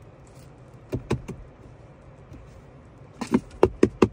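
A hand handling the hard plastic of a car's centre-console storage bin: a few sharp clicks about a second in, then a quick run of clicks and knocks near the end.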